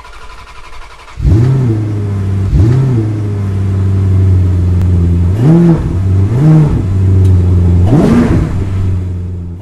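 Car engine revving: about five short throttle blips, each pitch rising and falling, over a steady low running drone. It gets loud about a second in and fades out near the end.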